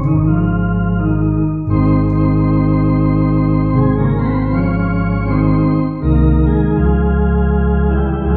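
Two-manual electronic organ playing a slow hymn: sustained full chords over deep held bass notes, the chords changing about every two seconds.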